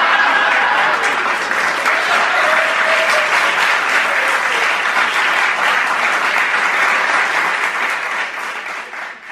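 Live audience applauding steadily, a dense patter of many hands clapping, dying away near the end.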